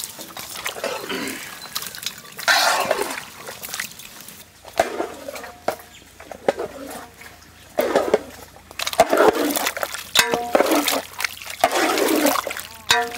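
A long wooden paddle stirring a large pot of thick mutton curry, giving wet, sloshing scrapes in irregular surges.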